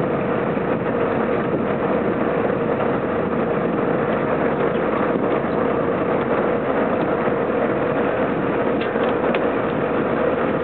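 Tomato harvesting machinery running steadily, with a constant whine above the engine noise, as tomatoes are loaded into a metal trailer tank.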